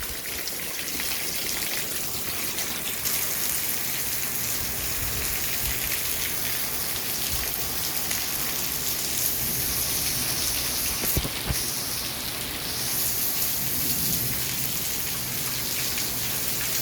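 Heavy thunderstorm rain pouring steadily onto a flooded patio.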